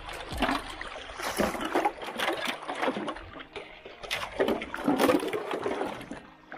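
Water splashing and trickling in uneven bursts as someone digs and scoops in shallow water.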